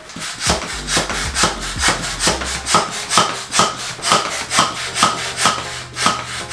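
Manual air pump worked in a steady rhythm, about two to three strokes a second, each stroke a short rasping rush of air, inflating a rubber exercise ball.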